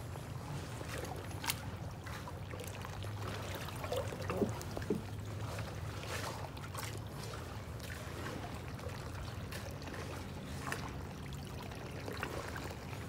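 Water lapping and trickling against a partly sunken shipwreck and a kayak, with a few small scattered clicks and knocks.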